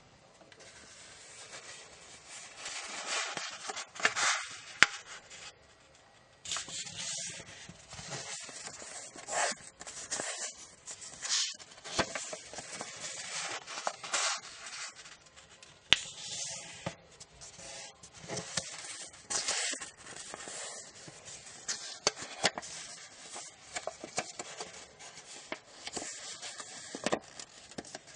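A sheet of origami paper being handled and folded by hand: irregular crinkling and rustling, with sharp crisp snaps as the creases are pressed. It begins about two seconds in.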